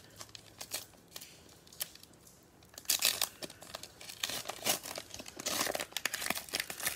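Plastic wrapper of a 2020 Panini Prizm baseball card pack crinkling and tearing as it is ripped open by hand. A few light handling clicks at first, then dense crinkling and tearing from about three seconds in.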